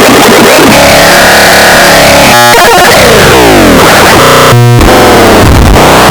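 A sound effect remixed into harsh, clipped electronic noise, at full volume throughout. Several layered copies sweep up and down in pitch, with choppy stutters about two and a half seconds in and again near the fifth second.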